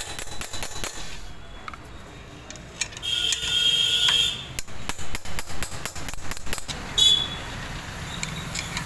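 Rapid hammer blows on a long steel drift rod, knocking the old steering-head bearing cup out of a Hero Splendor Plus motorcycle's head tube: sharp metallic taps, about four or five a second, in two runs. A high-pitched ringing tone comes about three seconds in and lasts about a second.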